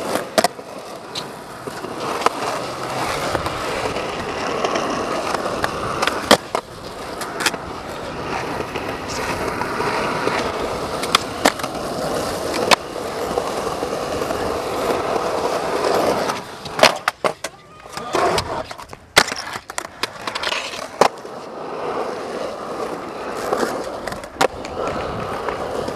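Skateboard wheels rolling on smooth concrete with a steady rumble, broken by sharp clacks of boards popping and landing. Trucks grind and scrape along a concrete ledge.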